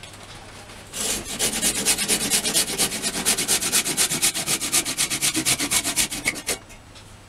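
Hand saw sawing through a turned wooden blank held in a lathe chuck, in fast, even back-and-forth strokes. It starts about a second in and stops near the end as the cut is finished.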